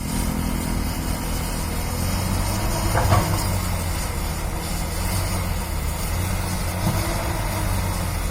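Excavator's diesel engine running steadily, with a short clank about three seconds in.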